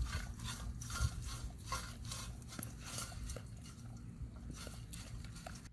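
A dog licking up the last crumbs of its ice cream, a steady run of quick wet licks about three a second.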